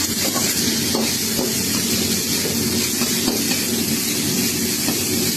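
Chicken pieces frying in hot oil, with a steady sizzling hiss and faint scattered crackles.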